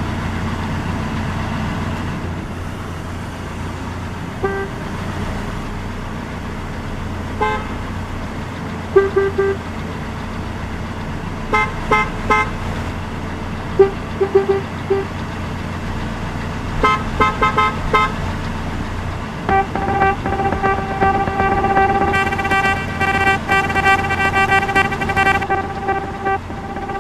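Car horns honking over steady traffic noise. At first there are scattered short toots and quick runs of beeps, then, about two-thirds of the way in, a long unbroken blare of several horns at once.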